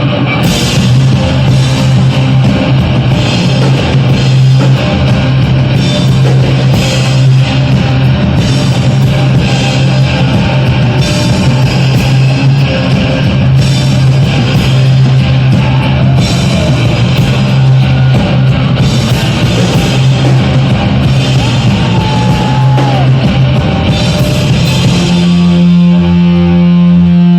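Live rock band playing an instrumental passage with guitar and drums. A low bass note is held for most of the passage and shifts up to a higher note near the end.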